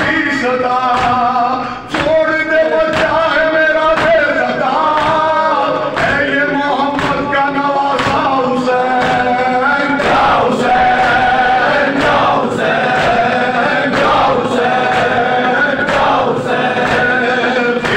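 A man chanting a noha (mourning lament) into a microphone, with a group of men chanting along. Regular sharp slaps of matam (rhythmic chest-beating) keep time about once a second.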